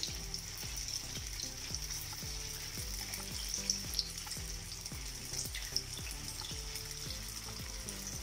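Bread kachoris deep-frying in hot oil in a nonstick frying pan, a steady sizzle with crackles and a few sharper pops as more balls go into the oil. Soft background music with a steady beat plays underneath.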